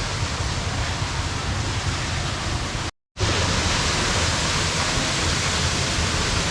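Steady rushing water of a waterfall, an even roar with no tone. About halfway through it cuts out for an instant, then comes back a little louder and brighter.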